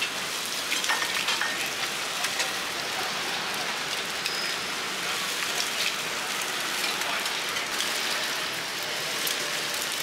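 Dozens of eggs frying in hot oil on a large round flat pan, a steady sizzle dotted with sharp crackles.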